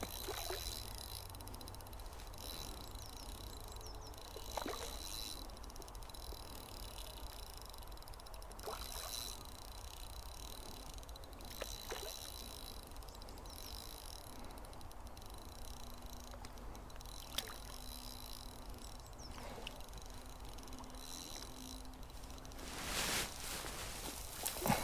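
Quiet riverside ambience: a steady thin high tone over a low rumble, with a few brief soft clicks or knocks and a short rush of noise near the end.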